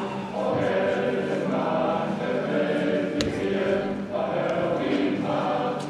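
A group of voices singing together in held notes, with one sharp click about three seconds in.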